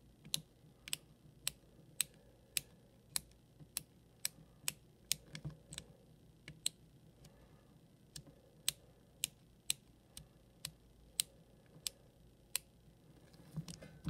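Number wheels of a Schwinn comb-type combination bike lock clicking as they are turned by hand one digit at a time, a sharp click about every half second, while the code is being decoded. Near the end there is a short rustle of the lock being handled.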